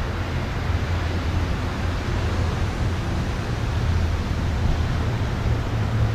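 Steady low rumble under an even hiss, with no separate events: continuous background noise.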